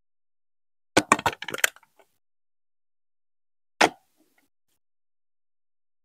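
Hard plastic Lego Duplo bricks and marble-run pieces being handled and pressed together. There is a quick cluster of clacks and clicks about a second in, then one sharp snap a little before four seconds.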